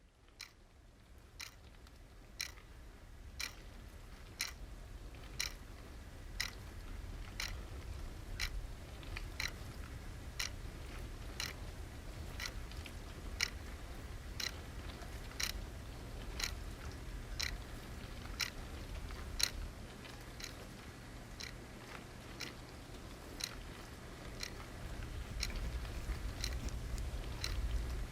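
Sharp ticks about once a second, very regular, over a low steady rumble that fades in over the first few seconds.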